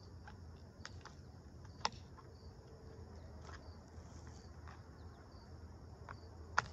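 Tin snips cutting vinyl fascia: a scatter of sharp snips, the loudest about two seconds in and near the end, over steady chirring of crickets.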